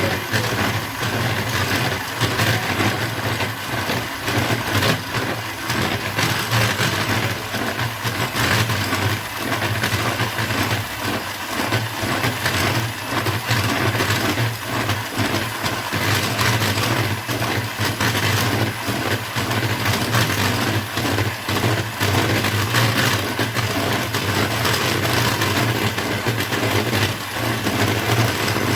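Electric hand mixer running steadily, its beaters whipping cream in a bowl with a constant motor hum and quick clicking and rattling.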